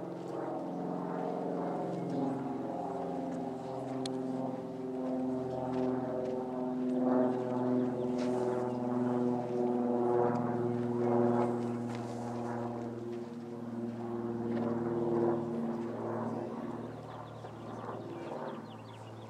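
A steady engine drone, its pitch shifting slowly up and down.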